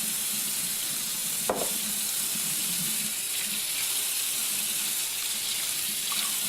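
A steady hiss, with a single sharp click about a second and a half in.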